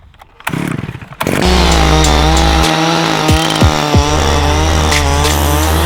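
Electronic dance music in a dubstep style, starting about a second and a half in, with a distorted buzzing synth, a heavy bass that drops out briefly and returns, and several falling pitch sweeps.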